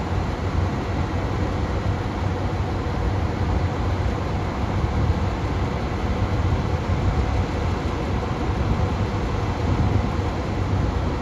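KiHa 183 diesel railcar engines idling at the platform: a steady low rumble.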